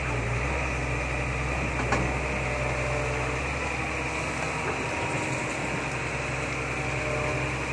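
Diesel engine of a Sumitomo long-reach excavator running steadily under load as the boom swings the bucket, with one brief knock about two seconds in.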